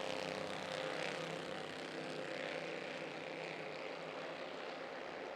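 A pack of Bandolero race cars' single-cylinder Briggs & Stratton engines running hard together as the field gets going, a dense blend of many overlapping engine notes.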